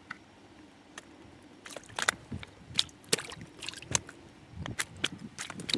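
Small caught fish being handled on wet pebbles in shallow water: a run of wet slaps, splashes and clicking stones that starts about two seconds in.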